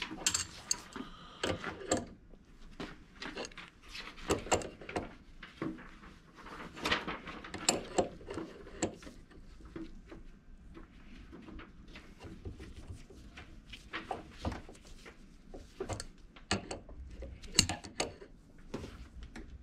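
Adjustable wrench clinking and scraping on a brass air-line fitting as it is tightened onto an air-suspension strut clamped in a bench vise: irregular metal clicks and knocks.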